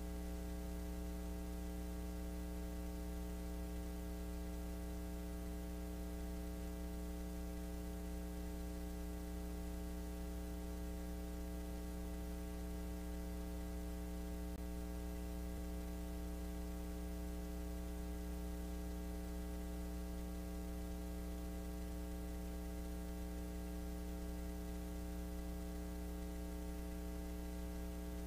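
Steady electrical mains hum: a low buzz with many evenly spaced overtones.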